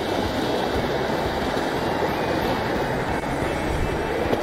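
Steady rushing of a mountain stream's water.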